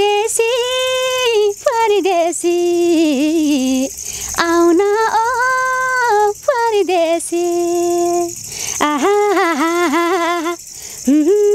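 A woman singing a Nepali Dashain song unaccompanied, in long held, wavering phrases with short breaks between them.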